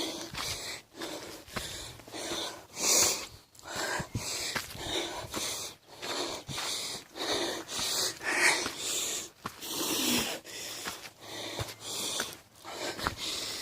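A person breathing heavily and fast, gasping in and out about once a second, out of breath from climbing stairs.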